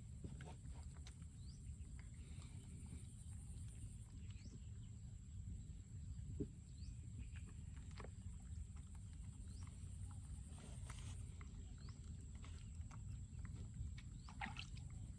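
Birds chirping faintly now and then, in short rising notes, over a steady low rumble and a thin, steady high-pitched whine.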